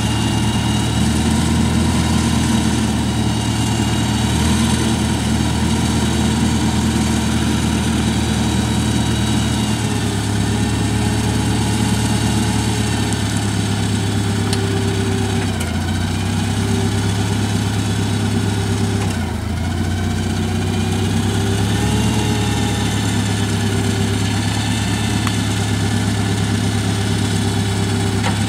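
Clark C500-Y50 LPG forklift's engine running at low speed as the truck moves about. Its pitch steps up and down a few times.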